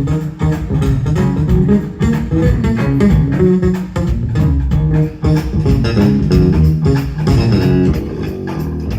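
Live smooth-jazz band playing, with guitar lines to the fore over bass guitar, keyboards and a steady drum beat.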